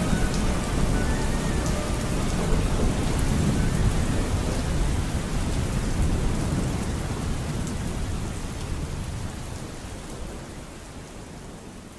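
Steady rain with a low rumble of thunder, fading out over the last few seconds.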